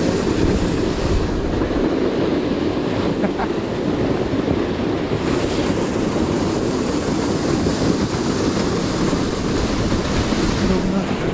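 Steady wind buffeting the microphone, a dense low rumble with no clear tones.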